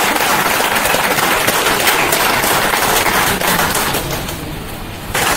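Audience applauding, a dense crackle of many hands clapping, which dips briefly about four seconds in and then picks up again.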